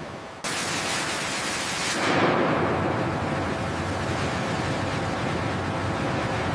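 A steady rushing, hiss-like noise that starts suddenly about half a second in, swells briefly around two seconds, then holds even.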